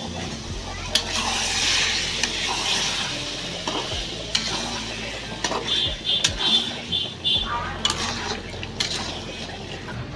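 Food sizzling as it fries in a pan while it is stirred with a metal spoon, which clicks and scrapes against the pan. About two-thirds of the way in, a run of short high chirps sounds over the frying.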